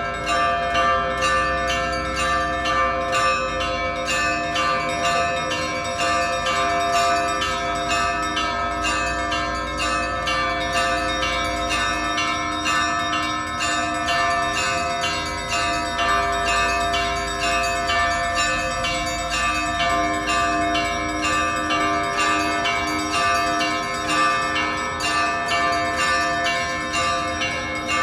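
Russian Orthodox church bells ringing: a continuous, rhythmic peal of several bells, quick strokes of the smaller bells repeating several times a second over the lingering tones of the bells.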